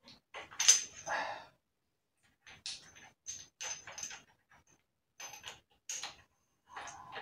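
Light metal clinks and knocks from the gearbox shafts and steel gears being handled and seated in an aluminium motorcycle crankcase, some with a brief high ring. The loudest clink comes just under a second in.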